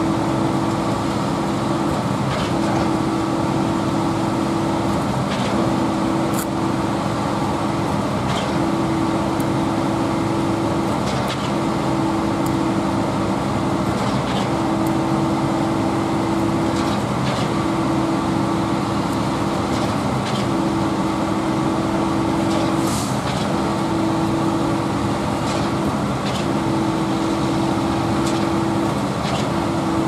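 A truck-mounted concrete boom pump runs under load during a concrete pour. Its diesel engine gives a steady drone, and a higher tone breaks off and dips about every three seconds, with a knock at each break as the pump switches strokes.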